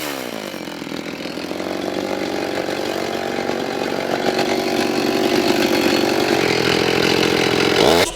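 Petrol chainsaw engine coming down from a rev and then idling steadily. The sound cuts off suddenly near the end.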